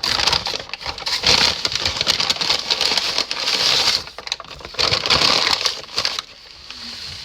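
Paper food wrapping crinkling and rustling as a takeout sandwich is handled and unwrapped. It eases off about six seconds in.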